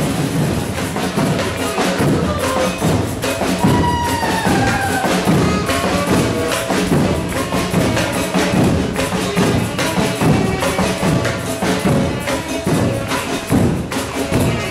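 Samba percussion band (bateria) playing a fast, steady rhythm: large surdo bass drums under smaller drums and jingling, rattling hand percussion.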